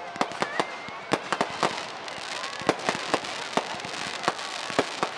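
Fireworks going off: a rapid, irregular string of sharp bangs and pops over a continuous crackling hiss.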